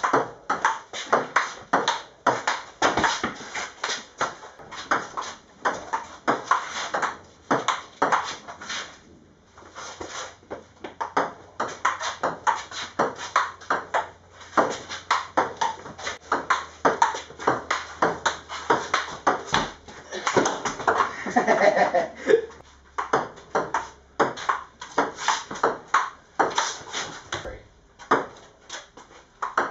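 Table tennis rally: the celluloid ball clicking sharply off the bats and the table, a quick run of several ticks a second with short breaks between rallies.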